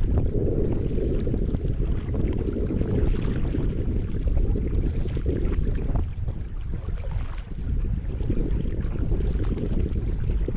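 Kayak paddle blades dipping and splashing in river water on alternating strokes, over a steady low rush of moving water.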